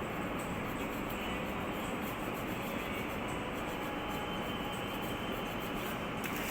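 Steady, unbroken machinery noise, a rumble and hiss with no rhythm or changes.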